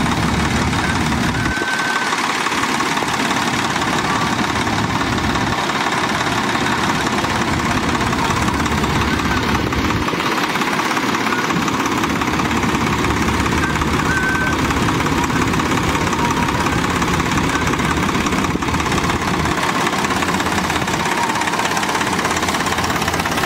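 Swaraj 855 tractor's three-cylinder diesel engine running steadily at low speed.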